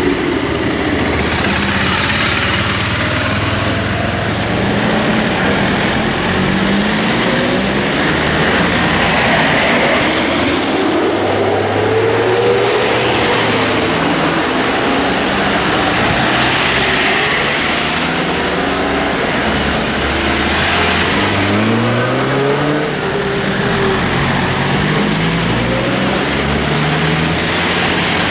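Emergency vehicles, a motorcycle and then Mercedes-Benz Sprinter ambulances, pulling out one after another, their engines accelerating as each drives past with tyre noise on a wet road.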